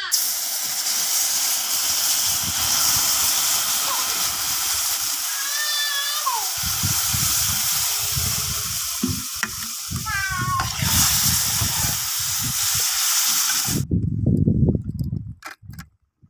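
Water poured into a hot aluminium pan of roasted semolina sizzles and hisses loudly, while a metal spatula stirs through it. The hiss cuts off suddenly near the end, leaving a few soft knocks.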